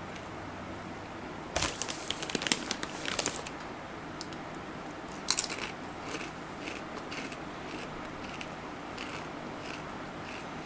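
Rolled tortilla chips being eaten: a burst of crinkling and crackling about two seconds in and a sharp crunch about five seconds in, then soft, regular chewing crunches, about two a second.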